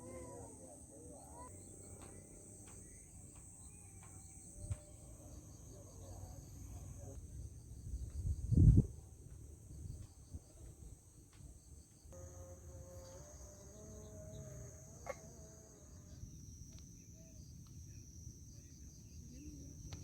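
Insects chirping in a steady high-pitched chorus, with one loud low thump about eight seconds in.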